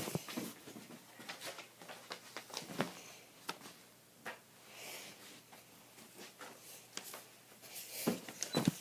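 Faint handling noise: scattered small clicks and rustles with a short soft hiss about five seconds in.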